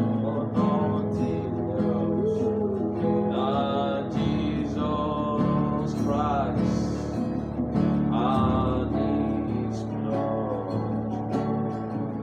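A hymn sung by a solo voice with vibrato over strummed acoustic guitar.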